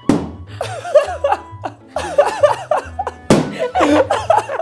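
Two balloons popping with sharp bangs about three seconds apart, as a dog bursts them, with a woman laughing hard in repeated bursts after each. Background music with a steady bass line plays underneath.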